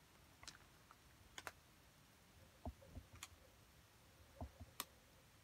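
Faint, scattered light clicks and a few soft low knocks from small objects being handled on a table, irregular rather than rhythmic.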